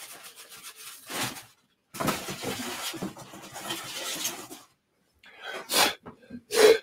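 Styrofoam packing being broken and pulled away from a ceramic mug, a rough crunching and rubbing noise, followed near the end by two short, louder knocks.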